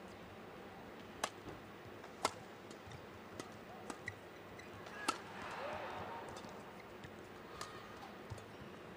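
Badminton rally: rackets striking the shuttlecock in sharp cracks, roughly one every second or so, the two loudest a second apart near the start.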